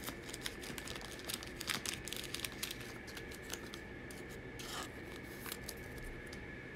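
Trading cards and foil pack wrappers being handled: light rubbing and scratching with scattered small clicks as cards are slid and shuffled.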